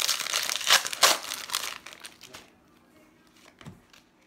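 Trading-card pack wrapper being torn open and crinkled by hand: a loud crackling rustle with a few sharp crackles over the first two seconds. It then dies away to faint ticks of the cards being handled.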